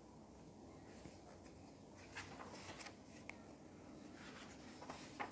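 Near silence with a few faint rustles and soft clicks of a paperback book's paper pages being turned and handled, the sharpest one near the end.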